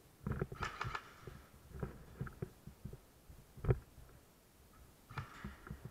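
Scattered knocks and clicks from a player's footsteps and gear moving on a concrete floor, in short irregular clusters, with one louder knock about two thirds in.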